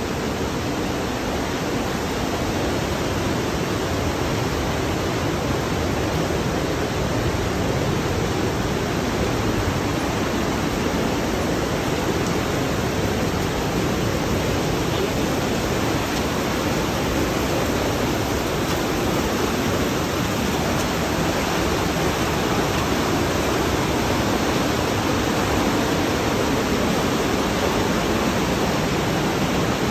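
Fast white-water mountain river rushing through a narrow rock gorge: a loud, steady roar of water.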